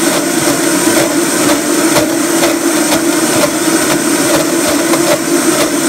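High-powered countertop blender running steadily at full power, churning a thick, dry dough of sprouted wheat, seeds and vegetables blended without any water.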